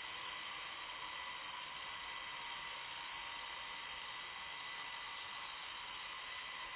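Blade mQx micro quadcopter's small electric motors and propellers whirring steadily in flight: an even high hiss with a faint steady whine.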